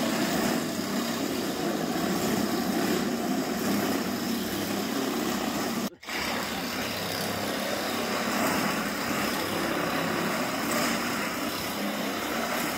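A DeWalt cordless drill driving a metal shear attachment, running steadily as it cuts through a corrugated steel roofing panel. There is a brief break about six seconds in.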